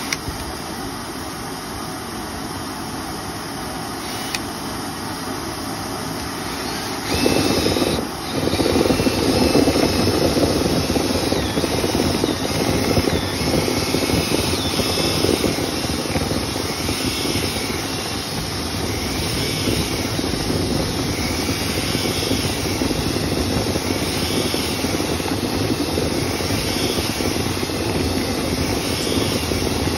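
Dryer vent cleaning equipment running with a steady mechanical whirr. It gets louder about seven seconds in, dips briefly around eight seconds, then runs on at the higher level.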